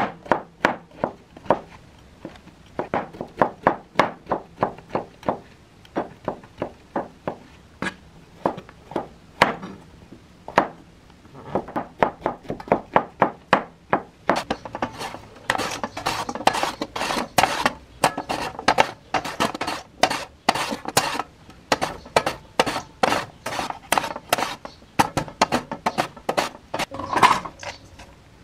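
Chef's knife slicing king oyster mushroom stems into thin matchsticks on a plastic cutting board: a steady run of blade knocks on the board, about three or four a second, getting quicker and denser from about halfway on.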